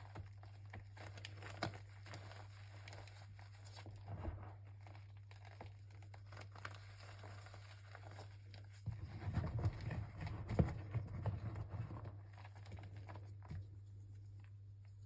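Handling of a box of chalk: scattered rustling, crinkling and light taps, busiest for a couple of seconds in the middle, over a steady low electrical hum.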